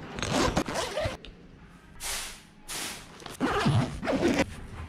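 Rustling and swishing of a fabric bag being handled close to the microphone, in several irregular bursts.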